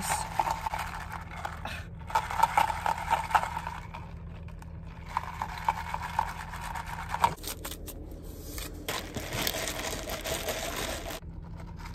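Ice cubes rattling and sloshing in a plastic iced-coffee cup as the unstirred drink is swirled and shaken to mix it, in several bouts with short pauses.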